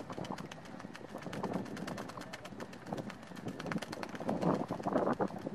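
Spinning reel being cranked against a hooked fish, with a rapid run of clicks.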